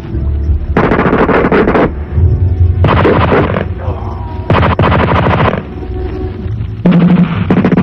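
Automatic gunfire in four rapid bursts, each about a second long, over background music.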